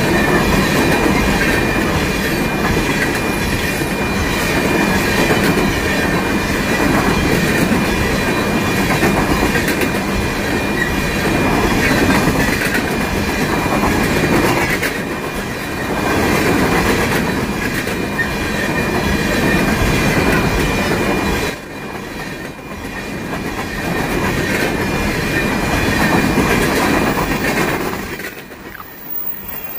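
Freight train coal cars rolling past close by: a steady rumble of steel wheels on rail with clickety-clack over the joints and a thin, steady high squeal from the wheels. The sound fades near the end as the last cars go by.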